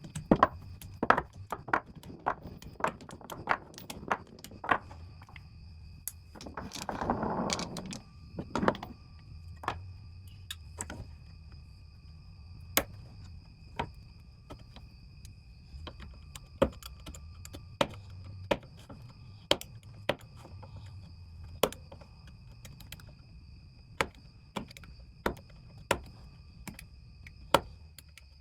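Irregular sharp clicks, snaps and clacks, often a couple a second, of plastic socket organizer rails being handled and their small retaining tabs cut off, with a brief rustling scrape about seven seconds in. A faint steady high whine runs underneath.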